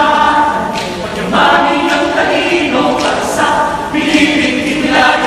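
Mixed choir of men and women singing a cappella in harmony, in short phrases with sharp consonants between them.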